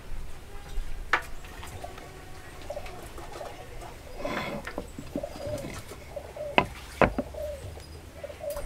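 Hardwood workpiece being set down and turned on a wooden workbench, with a few sharp knocks, the loudest two about half a second apart near the end. A bird coos softly several times in the second half.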